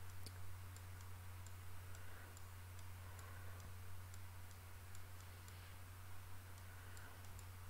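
Faint, irregular clicks of a computer mouse, about two a second, as a chart is dragged and scrolled, over a steady low electrical hum.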